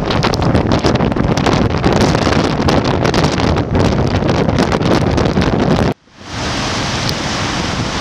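Bora storm wind buffeting the microphone over heavy surf, a loud rough rush broken by constant gust thumps. About six seconds in the sound cuts out for an instant and comes back as a smoother rush of wind and breaking waves.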